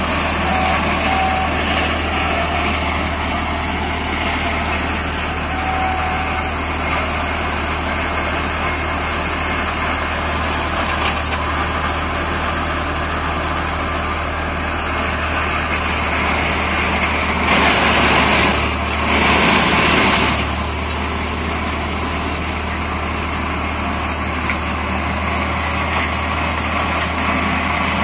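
Deutz D4006 tractor's air-cooled three-cylinder diesel running steadily under load, driving a PTO flail mulcher as it shreds brush and undergrowth. About two-thirds of the way through come two louder bursts of a second or two from the mulcher.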